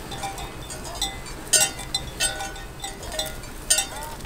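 Bells on a herd of goats clinking irregularly as the animals walk over rocky ground, about half a dozen ringing strikes, with a short goat call near the end.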